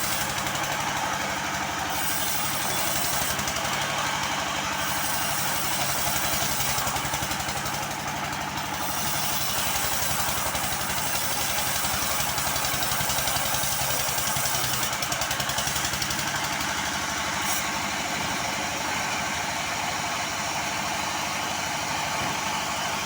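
A woodworking power tool running steadily, a dense hiss over a low motor hum with a fast even pulse, unbroken throughout.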